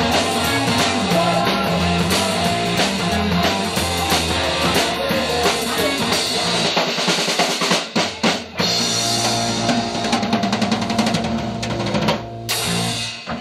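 Loud rock music driven by a drum kit, with a fast drum fill about eight seconds in; the music cuts off just before the end.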